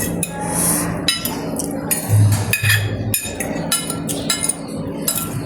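Cutlery clinking against bowls and plates while eating: repeated sharp clinks with a short ring, several a second.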